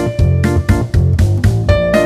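Background music: plucked guitar and keyboard notes over a steady bass beat, about two beats a second.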